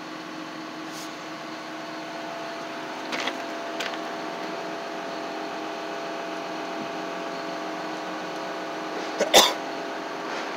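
A steady mechanical hum of a nearby motor runs throughout. A few light handling knocks come in the middle, and a brief throat sound from a person, like a cough or throat clearing, comes near the end.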